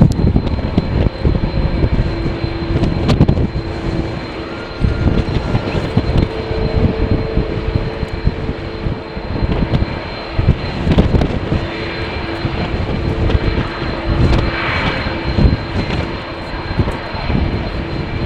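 An airliner's engines running with a steady hum and a high whine, under heavy wind gusting on the microphone.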